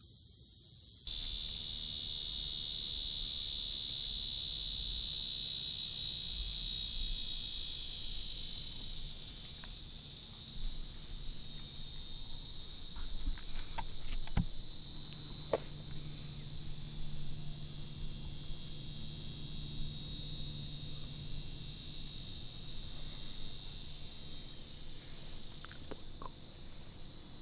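A steady, high-pitched chorus of insects, loudest for the first several seconds and easing off after about eight seconds, with a few faint clicks in the middle.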